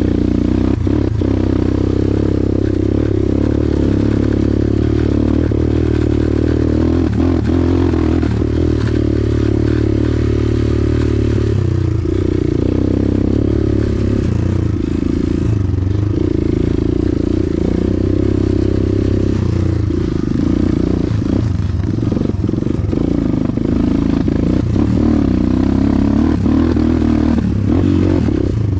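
Motorcycle engine running under way on a rough dirt trail, its pitch rising and falling with the throttle, with scattered knocks and rattles from the bike over the uneven ground.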